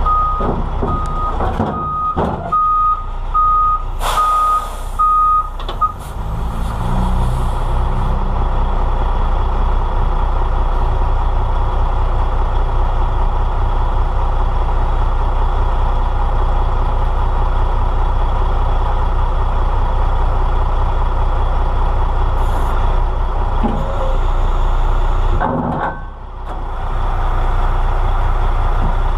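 Semi tractor backing up: its back-up alarm beeps about twice a second for the first six seconds over the steady run of the diesel engine, with a short hiss of air about four seconds in. The engine then runs on steadily, with a couple of knocks near the end.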